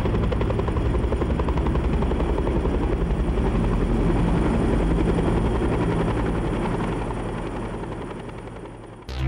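Helicopter rotor and engine heard from on board, a steady rapid beating of the blades over a low drone. It fades over the last couple of seconds and cuts off abruptly, giving way to music just before the end.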